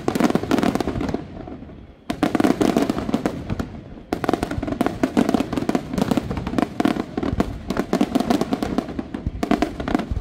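Aerial fireworks display: rapid, overlapping shell bursts and bangs going off in dense volleys, with short lulls about two and four seconds in before the barrage starts again.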